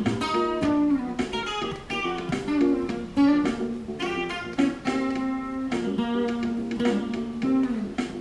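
Fender Stratocaster electric guitar playing improvised funk lines over a funk backing track: quick picked single notes, with a few longer held notes in the middle.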